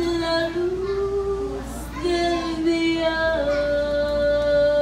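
A young girl singing a slow Spanish-language ballad into a handheld microphone, sustaining her notes and settling into one long held note partway through.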